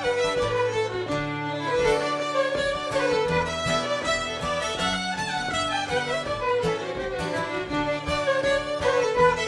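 A group of fiddles playing a fiddle tune together, with guitar chords and bass notes underneath.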